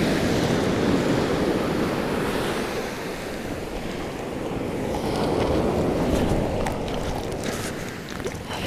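Surf breaking and washing onto a stony beach, swelling in two surges, with wind buffeting the microphone.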